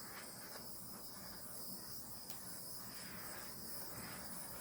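Faint, steady high-pitched hiss.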